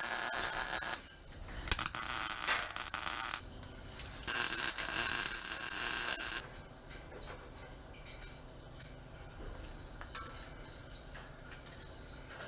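Wire-feed welder laying three short tack welds on a steel Chevy C10 front crossmember, each a crackling hiss lasting one to two seconds, the last one ending about six seconds in.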